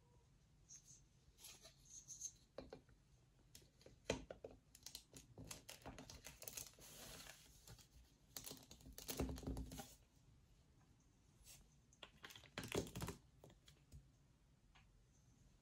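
Faint clicking and rustling of plastic LEGO bricks being handled and pressed onto a baseplate, in scattered clusters of small clicks.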